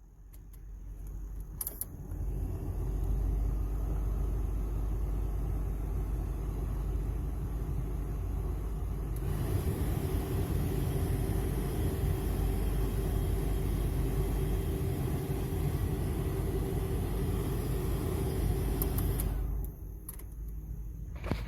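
2001 Ford F-150 engine running steadily; the sound grows fuller about nine seconds in and falls back near the end. The truck is sold as running with a misfire.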